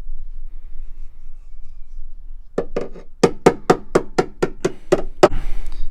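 A quick run of about ten sharp knocks, roughly four a second, starting about two and a half seconds in.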